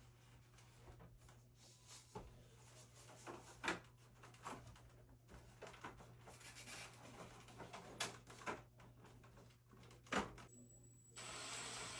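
Scattered light clicks and knocks a second or two apart over a steady low hum, with a short hiss near the end: parts being handled while the mini split is put back together.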